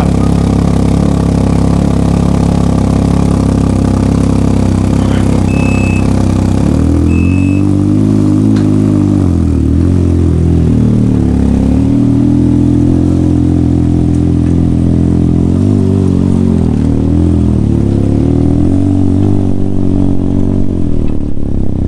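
Can-Am Ryker three-wheeler's engine running through a newly fitted BKD Ground Pounder aftermarket exhaust. It idles steadily at first, then about seven seconds in the pitch starts rising and falling as the bike is throttled and ridden off slowly. Two short high beeps come around six and seven seconds in.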